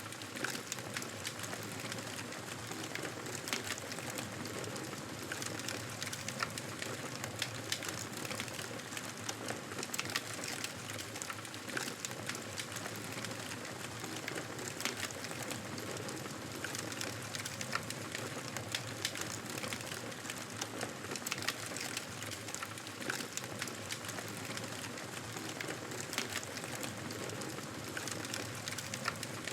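Wood fire crackling in a fireplace: a steady hiss with frequent small pops and snaps.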